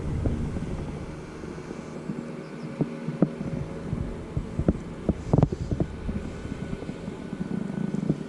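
Scattered irregular knocks and thumps from handling gear on a fishing kayak, over a low steady hum.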